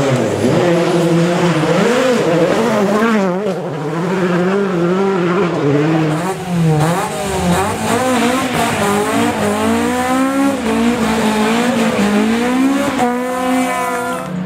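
Rally car engines revving hard, the pitch climbing and dropping repeatedly with throttle lifts and gear changes, with a run of quick rising revs near the end.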